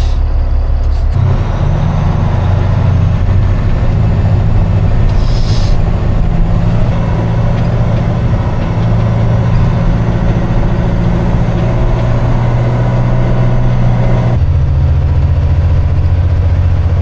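Truck engine running steadily while driving, its low drone changing pitch abruptly about a second in and again near the end. A brief hiss comes about five seconds in.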